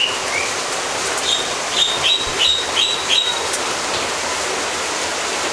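Steady rushing noise, with a quick run of five or six short, high chirps a little over a second in.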